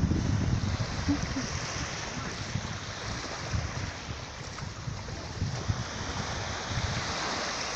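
Sea surf washing on the shore under a steady hiss, with wind buffeting the microphone in low rumbles.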